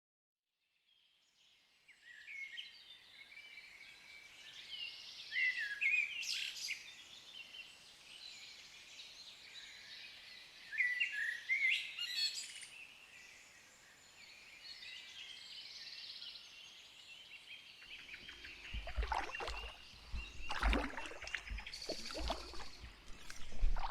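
Songbirds singing, with repeated chirps and trills starting about two seconds in. Near the end, a run of irregular knocks and low bumps joins in.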